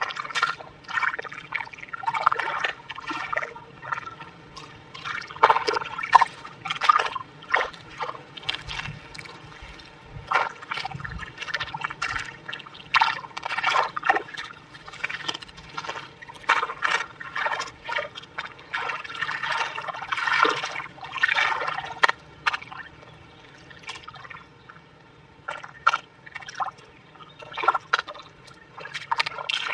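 Bare hands pressing, patting and smoothing wet mud, making irregular wet squelches and slaps.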